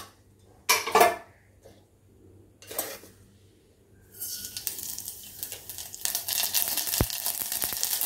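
A few clinks of a utensil against the pot or container, then mustard seeds in hot oil in a stainless steel pot start sizzling about halfway through. The sizzle gets louder and crackles with sharp pops as the seeds begin to splutter.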